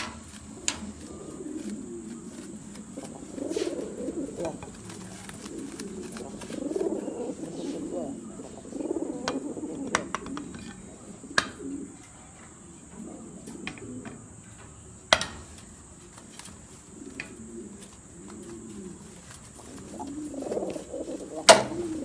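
English Trumpeter pigeons cooing in low, rolling bouts that come and go, with a few sharp clicks in between, the loudest shortly before the end.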